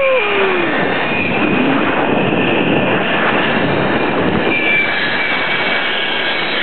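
Zip-line trolley pulleys running fast along a steel cable: a steady loud rushing whir with a faint high whine, mixed with wind on the microphone. A man's whoop trails off at the very start.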